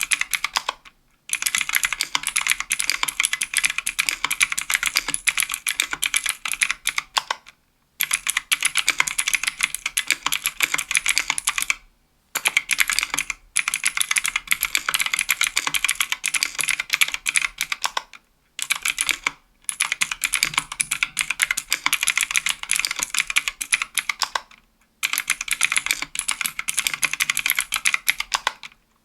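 Steady fast typing on a 60% aluminium-case mechanical keyboard with Kailh Pro Light Green clicky switches: a dense stream of sharp, high clicks with every keystroke, broken by a few short pauses.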